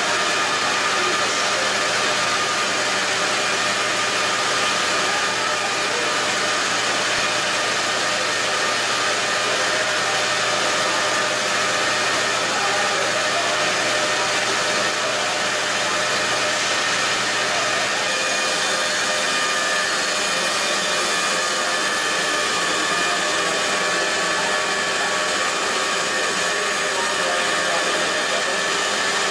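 Steady rushing noise of pumps and churning water in a crab-processing plant's tanks, with a few faint steady hums in it. A low hum drops out about two-thirds of the way through.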